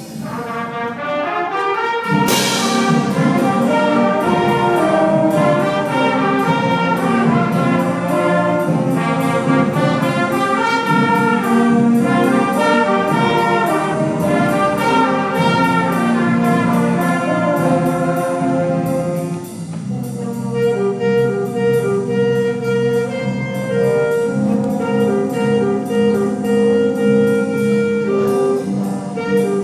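A student concert band of woodwinds, brass and percussion playing together. About two seconds in there is a loud crash from the percussion. About two-thirds of the way through the music drops briefly, then goes on with a repeated pattern of short notes.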